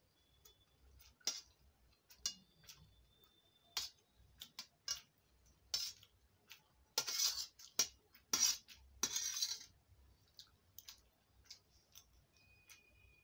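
Metal spoons clinking and scraping against a steel plate: scattered sharp clinks, some leaving a brief thin metallic ring, with a denser stretch of scraping about seven to nine and a half seconds in.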